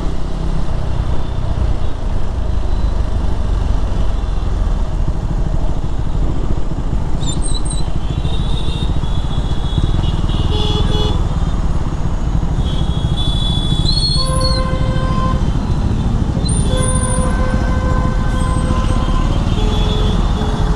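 KTM Duke 390 motorcycle riding in traffic: heavy wind rumble on the microphone over the running engine. A vehicle horn sounds about two-thirds of the way through and again, longer, near the end.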